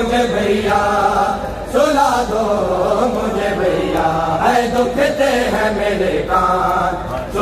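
Men's voices chanting a noha, a Shia mourning lament, in a slow sung melody with held notes, with a short break between phrases about two seconds in.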